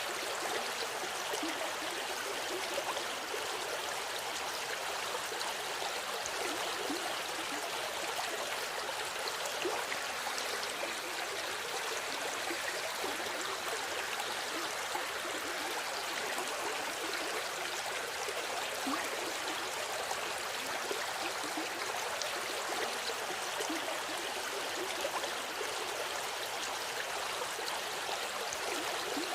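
River water flowing steadily over rocks, a constant rushing with small gurgles and splashes.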